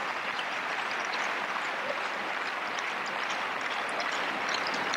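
Tennis crowd applauding, a steady even wash of clapping heard through the television broadcast.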